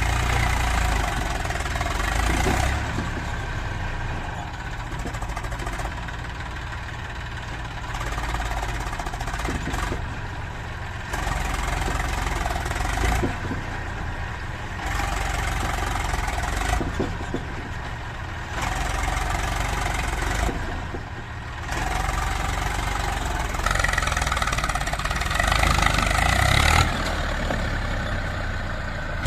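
A JCB 3DX backhoe loader's diesel engine running, its sound rising and falling every few seconds as the hydraulic arm digs and loads mud. It is loudest near the end.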